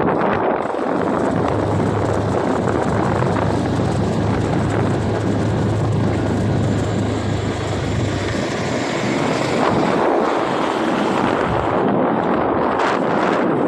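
A vehicle engine drones steadily under heavy rushing noise, with a low hum for the first half that fades out.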